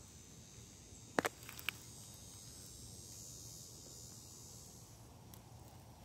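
A steady, high-pitched chorus of insects trilling in the background, fading out about five seconds in. A few sharp clicks a little over a second in are the loudest sounds.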